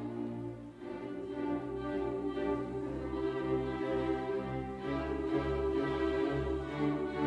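Symphony orchestra playing slow classical music, with bowed strings to the fore in long held notes, growing slightly louder.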